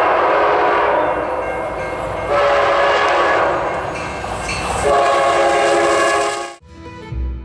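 Diesel freight locomotive horns sounding in three clips spliced together, each a steady chord that changes abruptly at the cuts. The horns stop suddenly about six and a half seconds in, and string music begins.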